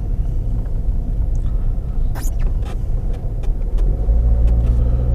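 A car being driven on a snowy road, heard from inside the cabin: a low engine and tyre rumble with a few light knocks. The engine note steadies into an even hum about four seconds in.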